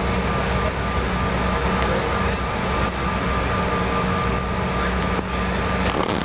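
Steady engine and cabin noise of a jet airliner heard from inside the cabin, a constant rumble with a faint steady whine over it.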